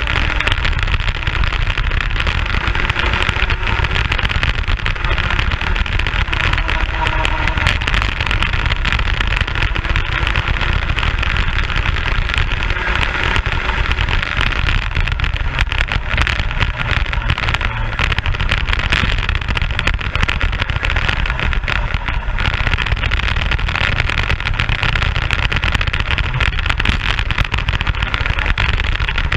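Racing kart engine running hard through a lap, heard from a camera mounted on the kart, with a steady low rumble and rushing noise and no let-up.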